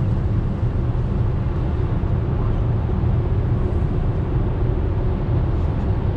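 Steady low rumble of road and tyre noise inside a moving car's cabin on a wet freeway.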